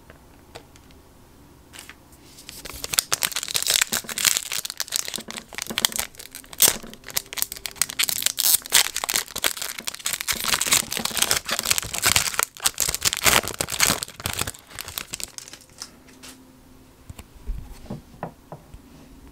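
Foil wrapper of a Topps Chrome baseball card pack being torn open and crinkled by hand: a dense crackling rustle from about three seconds in until about fifteen seconds in, then a few soft clicks as the cards are handled.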